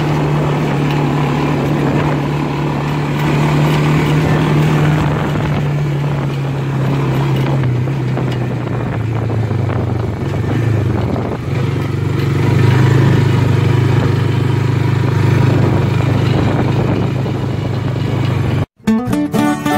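Honda Fourtrax 300 ATV's single-cylinder four-stroke engine running steadily. Its pitch dips a little about eight seconds in and picks up again a few seconds later. About a second before the end it cuts off abruptly, giving way to acoustic guitar music.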